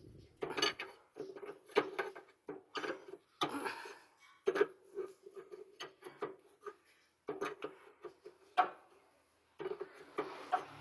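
Irregular clinks and knocks, several a second at times, with a mid-pitched tone that comes and goes.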